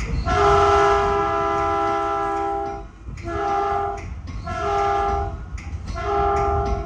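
Caltrain train's multi-tone air horn sounding one long blast and then three short ones, over the low rumble of the train running.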